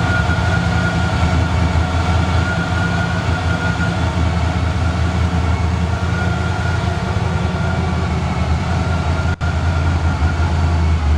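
Chevrolet 350 small-block V8 of a 1978 Camaro Z28 running steadily after its rebuild: an even low rumble with a faint whine above it. It drops out for an instant about nine seconds in.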